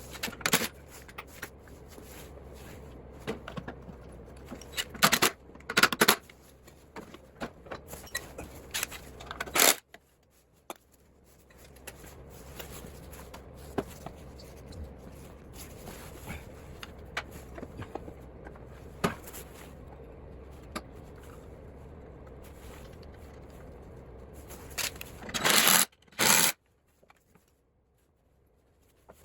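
Hand work on a lawn mower's rear wheels: parts scraping and rubbing, with scattered small clicks and a few loud sharp knocks. It drops to near silence for about two seconds near the end.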